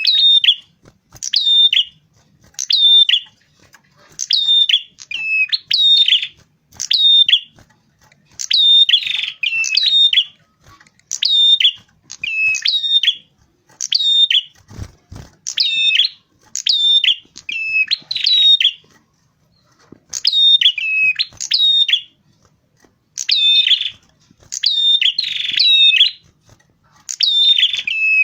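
Prenjak kepala merah, a small prinia-type songbird, calling loudly and repeatedly. It gives quick high chirp phrases of stepped notes falling in pitch, about one a second with short pauses. A soft low knock comes about halfway through.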